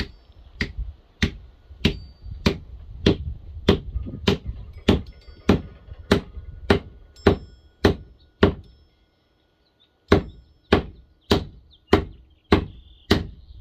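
Hammer driving a wooden wedge into the top of a red elm axe haft to lock the axe head on: steady, sharp blows about every 0.6 seconds, a short pause a little past the middle, then more blows.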